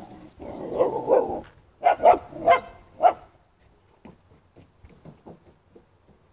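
A group of street dogs in a scuffle: about a second of dense, overlapping dog noise, then four short, loud barks in quick succession between about two and three seconds in, after which only faint scattered ticks remain.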